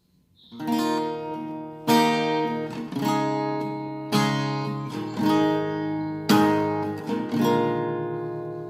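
Acoustic guitar strumming chords, starting about half a second in, with a new strum every second or two and each chord left to ring.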